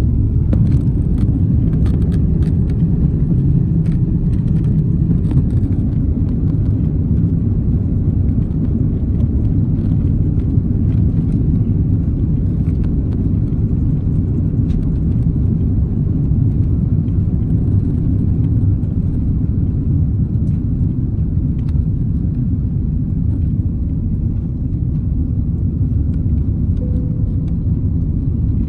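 Passenger airliner cabin noise: a steady low rumble of the jet engines and airflow heard from inside the cabin, with a few light clicks and rattles in the first few seconds.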